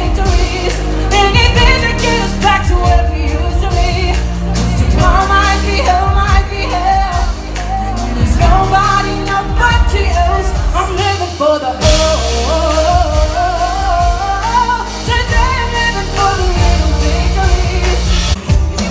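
Female singer performing a pop song live with a band, her voice carried over a heavy bass line, recorded from the audience in a concert hall.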